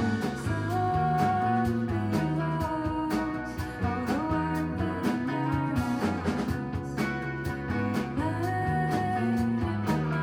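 Live band music with a sung or played melody over guitar, bass and a steady drum beat.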